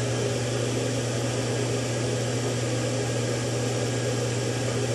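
Steady low machine hum with an even rushing hiss over it, unchanging throughout.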